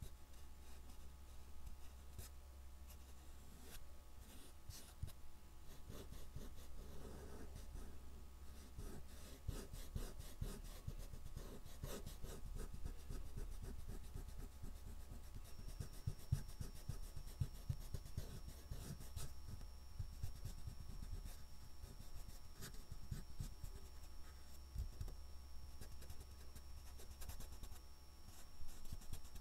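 Fingertips rubbing and blending oil pastel across a painted board, a dense run of short scratchy strokes over a steady low hum.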